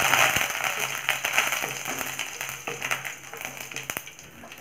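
Mustard seeds spluttering and curry leaves sizzling in hot oil in a stainless steel kadai, stirred with a wooden spatula, with many small pops and clicks. The crackling dies down steadily as the seeds finish popping.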